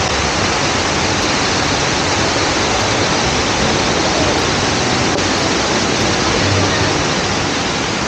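Waterfall: falling water rushing in a loud, steady, even hiss with no breaks.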